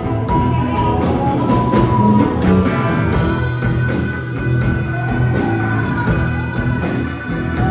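Live band with electric guitars, bass guitar and drum kit playing a slow blues through a PA, in an instrumental break without singing. A harmonica holds one long note from a little under halfway through until near the end.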